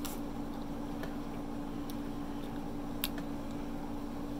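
Close-up eating sounds: chewing, with a few short wet mouth clicks, the sharpest about three seconds in, over a steady low hum.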